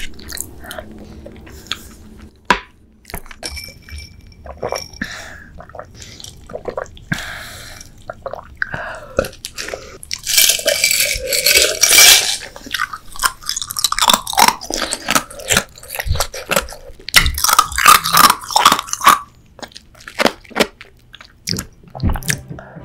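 Close-miked eating sounds: crackly chewing and crunching of food, with a gulp of water from a glass about halfway through.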